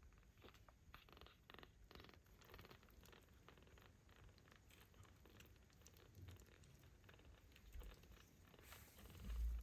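Ginger kittens purring faintly, with a run of soft ticks in the first few seconds. A low thump near the end is the loudest sound.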